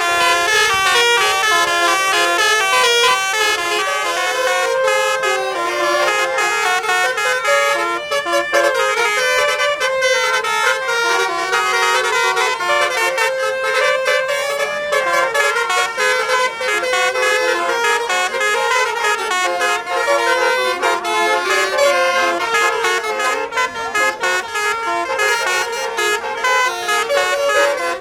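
Basuri telolet horn on an Indonesian tour bus playing a fast melody of short notes stepping up and down, running on with only brief breaks.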